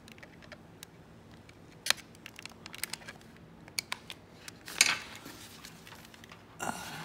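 Scattered small metallic clicks and taps of hand tools working a condenser lead and terminal on a Kawasaki snowmobile engine's ignition stator plate during soldering, with one louder click about five seconds in.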